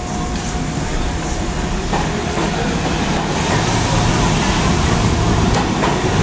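R68 subway train pulling out of an underground station and speeding up past the platform, its running noise growing steadily louder, with a couple of sharp clicks from the wheels over the rails.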